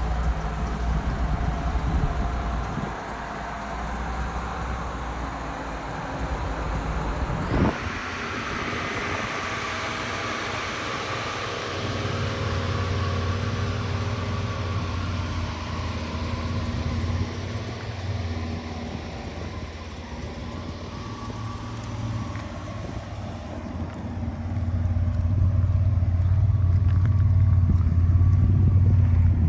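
Buick Grand National's turbocharged V6 engine running with a steady low drone. The sound changes abruptly about a quarter of the way in, and it grows louder in the last few seconds.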